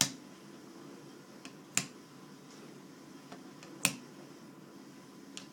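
The blue solenoid coils of an OMVL REG FAST CNG injector rail being pushed down onto the injectors' steel posts, each one seating with a sharp click: three clicks about two seconds apart, with lighter ticks between.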